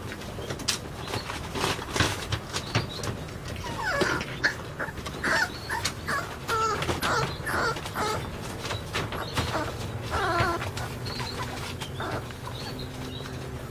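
A puppy whimpering and yipping in a series of short, high calls through the middle seconds while it tugs at a shoelace. In the first few seconds there are sharp clicks and taps.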